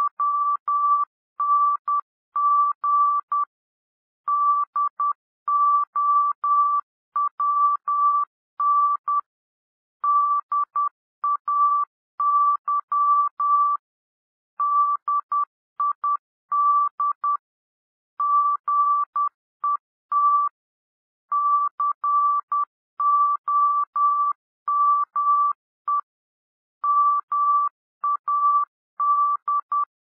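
Morse code (CW) practice tone: one steady, mid-pitched beep keyed on and off in dots and dashes at 10 words per minute, spelling out common English words with longer gaps between words.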